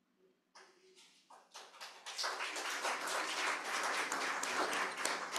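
Congregation applauding: a few scattered claps about half a second in, swelling into full, steady applause by about two seconds.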